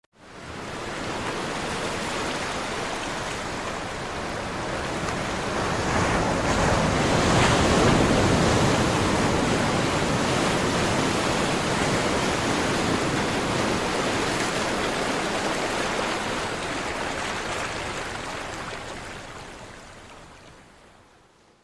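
Sea surf: a steady wash of waves on the shore, swelling about six to eight seconds in and fading out near the end.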